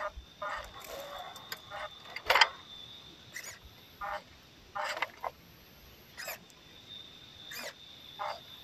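WPL C24 RC crawler's electric motor and gearbox whirring in short bursts as it inches over a rock ledge on short throttle pulses, the sharpest burst about two and a half seconds in.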